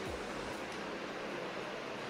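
Steady background room noise: an even hiss, with no distinct event.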